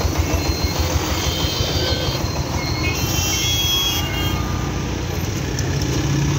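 Congested road traffic at a level crossing: a nearby engine idles with a rhythmic low thumping in the first second, then a steady traffic din with several short high ringing tones in the middle.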